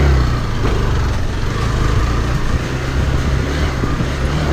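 Motorcycle engine running at low, steady revs under the rider, as the bike crawls over a rough, muddy stony track. The rider reckons the clutch has got hot from the slow going.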